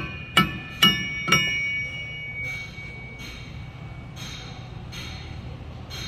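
A hammer striking the rear axle shaft flange of a 2019 Ford Transit T250 about four times in the first second and a half, each blow ringing like a bell, knocking the axle shaft loose from the hub. The last ring fades over a few seconds and is followed by a few short, softer scuffs.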